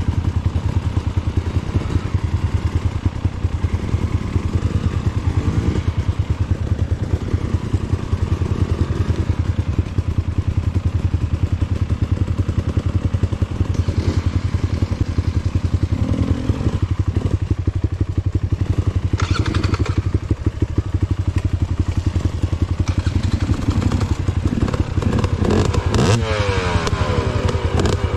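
Dirt-bike engine running at low revs with a fast, even beat of firing pulses and a few knocks along the way; about two seconds before the end the engine revs up briefly.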